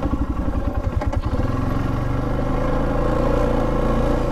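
Polaris Sportsman 570 ATV's single-cylinder engine running while the machine is ridden along a dirt trail. Its note wavers about a second in, with a few light rattles, and then holds steady.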